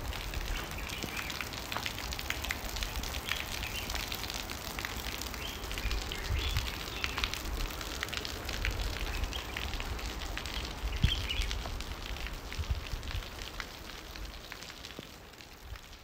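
Heavy rain pelting onto wet ground and puddles, a dense crackling patter of drops over a low rumble. It dies down over the last few seconds.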